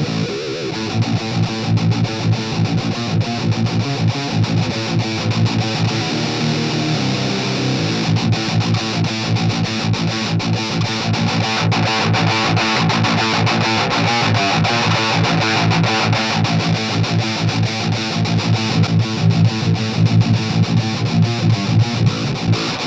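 Electric guitar played through a Harley Benton Extreme Metal distortion pedal: heavily distorted riffing with low notes, becoming fast, rapidly picked strokes about a third of the way in.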